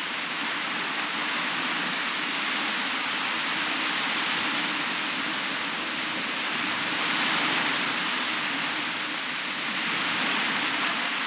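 Small surf waves breaking and washing up a sandy beach, a steady hiss that swells about seven seconds in and again near the end.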